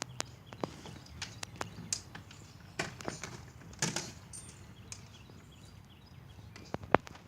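Birds tapping and pecking at a hard object: irregular sharp taps and clicks, some in quick pairs, the loudest about seven seconds in.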